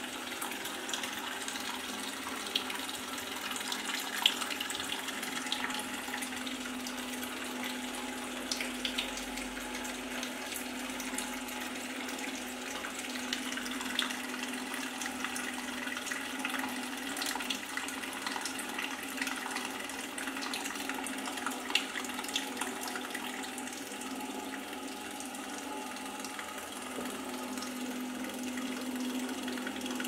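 Lathe coolant pump running while a thin stream of coolant pours from the flexible nozzle and splashes onto the lathe, with a steady hum underneath and small scattered ticks of dripping.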